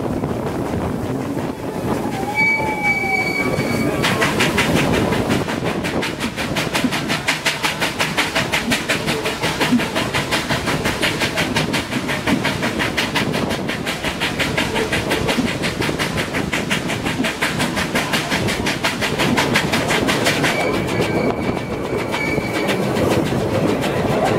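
4-8-2 steam locomotive working its train, heard from a coach close behind: from about four seconds in until near the end, a quick, even beat of exhaust chuffs, about four a second, over the running of the coaches. Before and after the chuffing, a thin high steady squeal.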